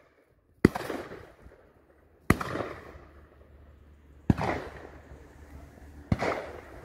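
Four shotgun shots from guns on a pheasant shoot, about two seconds apart, each trailing off in a long echo.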